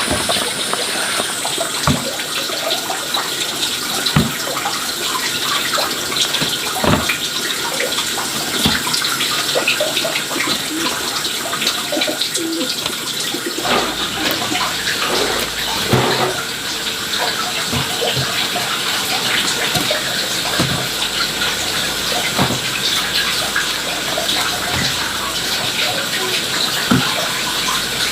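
Water running steadily, with scattered knocks and clatters over it.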